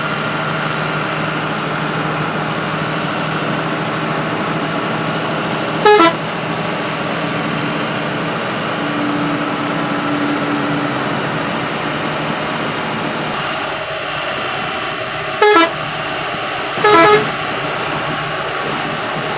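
Steady engine and road drone of a bus at highway speed, heard from inside the driver's cab. The horn is sounded in three short, loud blasts, once about six seconds in and twice close together near the end, as a warning while overtaking trucks.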